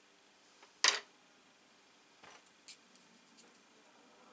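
Small metal clicks from handling a Euro-cylinder lock's parts with tweezers: one sharp click about a second in, then a few faint taps.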